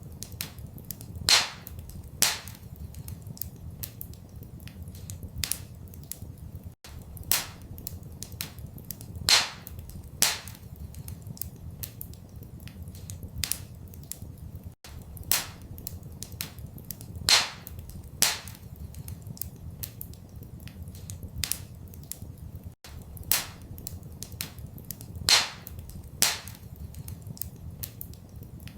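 Wood fire crackling in a fireplace: irregular sharp pops and snaps, a few much louder than the rest, over a steady low rumble. The same pattern of pops repeats about every eight seconds, like a short loop.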